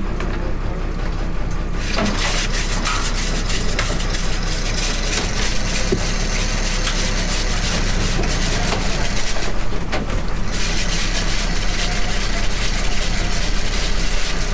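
Crab workboat's engine running steadily under a loud rushing hiss that comes in about two seconds in and drops out briefly near ten seconds, with scattered clicks and rattles from wire crab pots being handled on deck.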